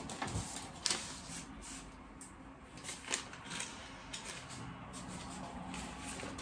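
Small items and their packaging being handled on a desk: scattered rustles and light knocks, the clearest about a second in and around three seconds in.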